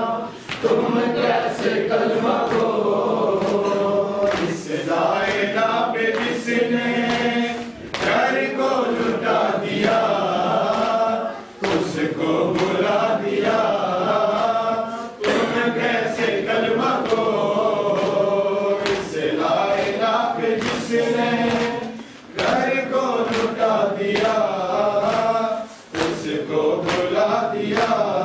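A group of men chanting a noha, a Muharram mourning lament, together in repeated phrases of a few seconds with short breaks between them. Hands slap on chests in time with the chant (matam).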